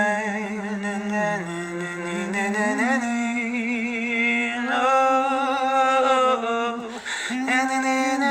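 A man singing wordless long-held notes in a slow melody, with a pitch glide up about three seconds in and a short breath near seven seconds.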